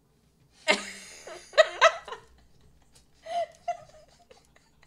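A man and a woman laughing together: loud, breathy bursts of laughter in the first couple of seconds, tapering into softer chuckles.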